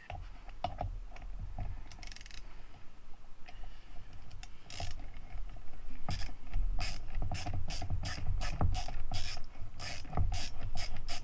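Phillips screwdriver backing a screw out of a kayak's rudder mount: sharp clicks, a few at first, then about three a second over the last five seconds, over low handling noise.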